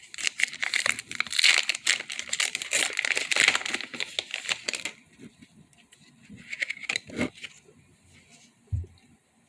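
Foil Pokémon card booster pack wrapper crinkling and being torn open, a dense crackle for about five seconds. Lighter rustling follows, with a soft thump near the end.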